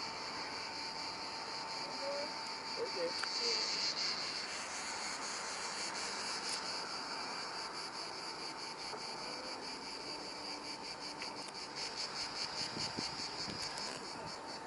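Cicadas chirring steadily in a high, continuous drone with a fast pulsing, loudest a few seconds in and pulsing more plainly near the end.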